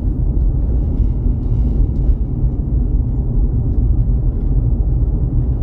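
Steady low rumble of a vehicle driving, with road and engine noise at an even level.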